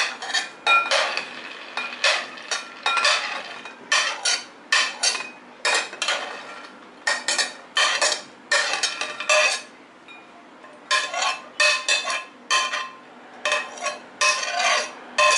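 A spoon clinking and scraping against small bowls and a glass mixing bowl as chopped ingredients are scraped in: irregular runs of taps, some leaving a brief ringing tone, with a short lull about ten seconds in.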